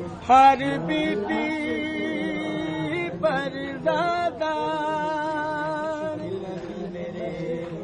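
A male reciter sings a noha, a Shia mourning lament, in two long held phrases with a wavering vibrato.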